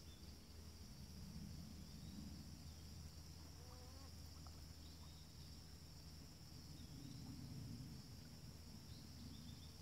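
Faint, steady high-pitched chirring of an insect chorus over a low, uneven rumble. A brief faint wavering call can be heard about four seconds in.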